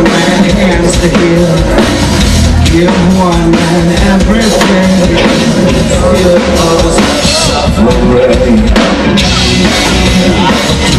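Live rock band playing loud, with a drum kit, electric guitar and a male vocalist singing into a microphone through the PA, heard from within the audience.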